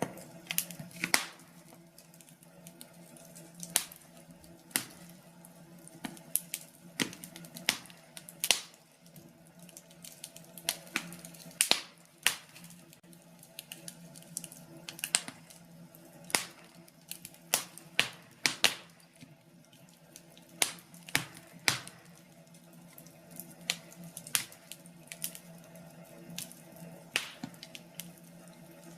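Wood fire crackling in a fireplace: irregular sharp pops and snaps, a few a second and uneven in loudness, over a faint steady hum.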